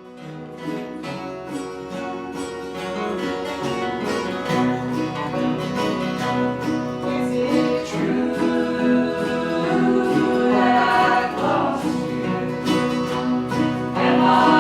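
Bluegrass music from a string band of plucked guitar and other strings with singing, fading in at the start.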